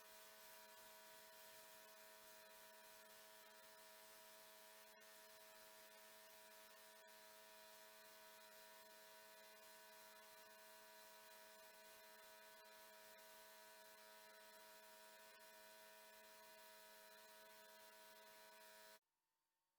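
Near silence: a faint, steady hum with several constant tones over a light hiss, cutting off abruptly near the end.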